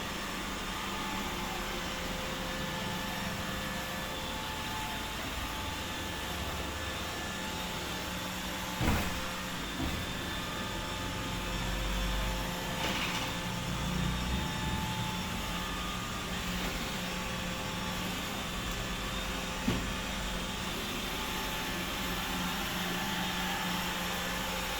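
iRobot Roomba 870 robot vacuum running with a steady motor hum and whine, broken twice by a short sharp knock.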